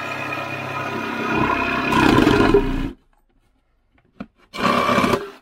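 Milwaukee M12 cordless jigsaw cutting through plywood, running steadily, then stopping abruptly about three seconds in. A brief second burst of cutting follows near the end.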